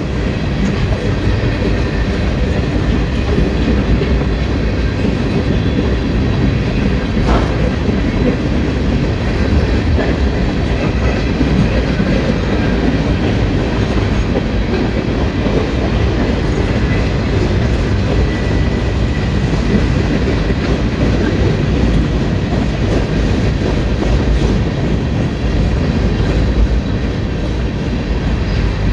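Freight cars of a Union Pacific general manifest train rolling past: a steady, loud rumble of steel wheels on the rails, with one sharp knock about seven seconds in.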